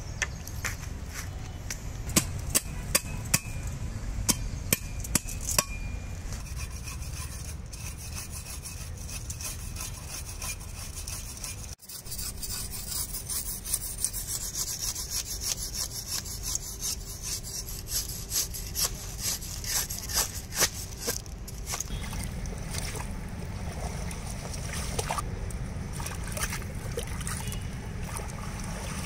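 Knife and cleaver cutting up a large billfish: rasping, sawing strokes through skin and bone, broken by runs of sharp chops about twice a second.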